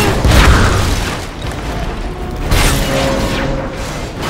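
Heavy booms and a rumbling, clanking mechanical din from dubbed-in action sound effects. It starts with a sudden hit, and a second burst comes about two and a half seconds in. Film score plays underneath.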